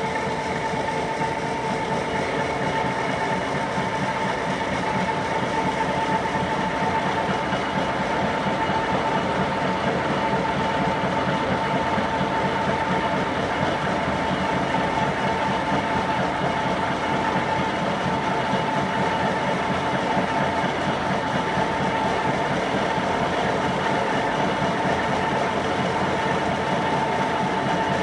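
Fellows 4-60 rack gear shaper running under power, a steady mechanical hum with a constant whine.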